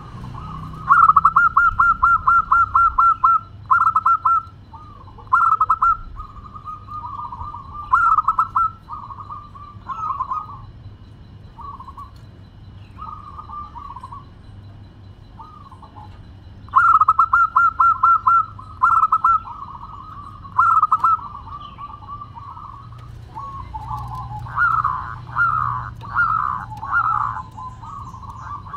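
A zebra dove (perkutut) singing its cooing song. Each phrase opens with a rapid run of short notes and is followed by spaced cooing notes. The phrase comes twice, and a run of rising notes follows near the end.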